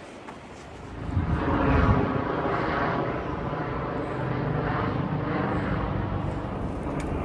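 Helicopter flying over the valley. Its engine and rotor drone swells about a second in, then holds steady.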